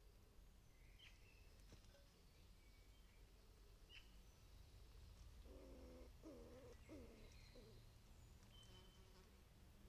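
Faint outdoor bird calls: a few short high chirps, and a run of four low, pitched calls about halfway through.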